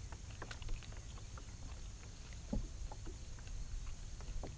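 Small clicks and rustles of a banana being peeled by hand, over a low steady rumble.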